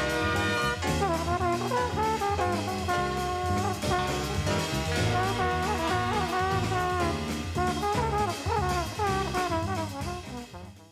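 Instrumental soundtrack music with wavering melody lines over steady low bass notes, fading out near the end.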